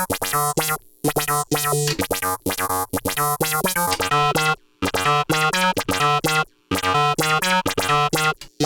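Blipblox synthesizer played through a Eurorack modular synth, its envelope follower and envelope generators shaping the sound, giving a repeating sequence of short electronic synth notes in phrases broken by brief pauses.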